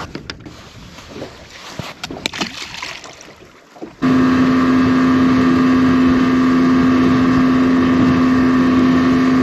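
A boat motor running at a steady speed with a steady hum, cutting in suddenly about four seconds in; before that, a few light knocks and handling noises.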